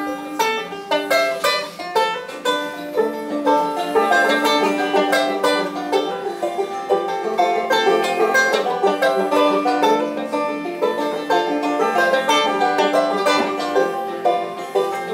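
Two banjos picked together in an instrumental passage of a song, a dense run of quick plucked notes with no singing.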